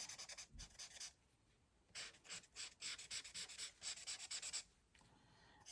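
Faint scratch of a nearly dried-up alcohol marker's nib stroking back and forth on colouring-book paper, several quick strokes a second, stopping twice for under a second.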